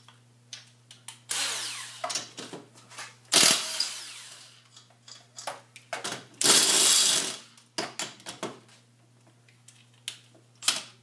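Power impact wrench run in three short bursts of about a second each, loosening a wheel's lug nuts, with small clicks and clanks between the bursts.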